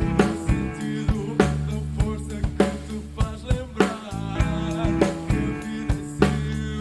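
Rock band playing an instrumental passage: a drum kit keeps a steady beat with kick, snare and rimshot hits over bass guitar, electric guitar and keyboards.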